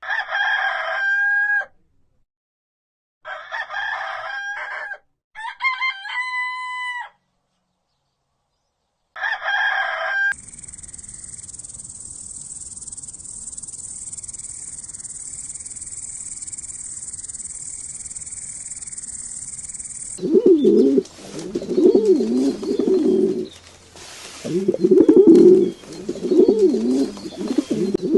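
A rooster crowing four times, each crow lasting one to two seconds. A steady high hiss follows for about ten seconds, and then, from about twenty seconds in, pigeons cooing over and over.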